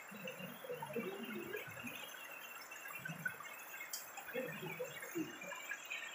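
Steady rush of a shallow stream flowing over rocks and through a stone-filled gabion weir, with faint murmuring voices and a single sharp click about four seconds in.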